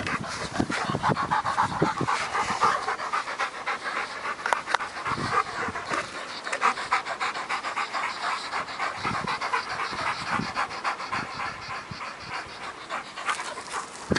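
A young mastiff panting rapidly and steadily with its tongue out, winded from chasing after a stick.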